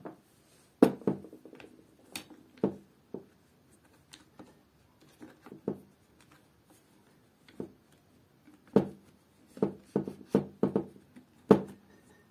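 Irregular small clicks and taps of hands fitting wires into a corded drill's plastic trigger switch and handling the opened plastic housing, about a dozen of them, bunched more closely in the last few seconds.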